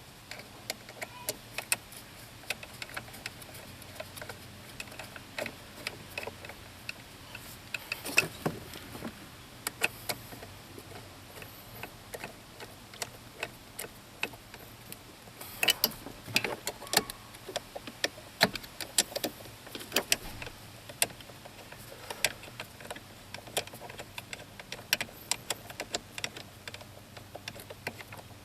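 Ratchet wrench clicking in irregular runs as bolts holding the steering column's power-steering motor are run down, with small metal clinks from the tool and parts.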